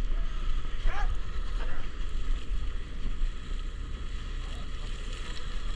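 Steady low rumble of a fishing boat's engine under a haze of wind and water noise, with faint distant shouting about a second in.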